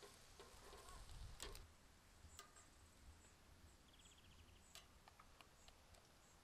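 Near silence, with a few faint clicks of metal tongs against a wire grill basket as corn cobs are turned over charcoal, and a brief run of rapid ticking about four seconds in.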